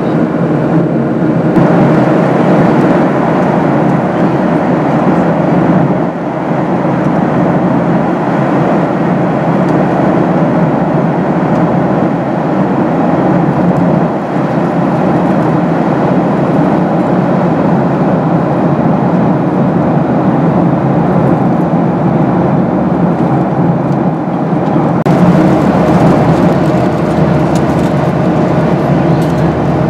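Steady cabin noise of a Boeing 737-800 airliner in flight: an even rush of airflow with the hum of its engines, unchanging throughout.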